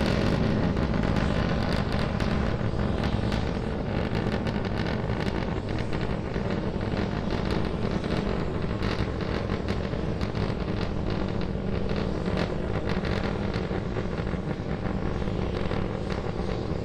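SpaceX Starship SN10's three Raptor engines firing during powered ascent: a steady low rumble thick with rapid crackling, easing slightly over the first few seconds.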